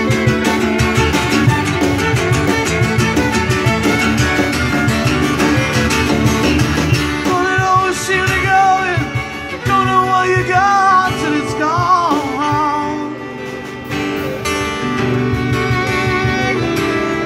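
Live acoustic band playing an instrumental passage: acoustic guitar strumming, fiddle and a drum kit with conga. From about eight seconds in, a melody with slides and vibrato rises above the accompaniment for several seconds.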